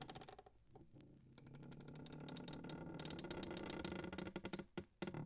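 Rapid, irregular clattering clicks, several a second, like a rattle, dropping away briefly about a second in and stopping just before the end.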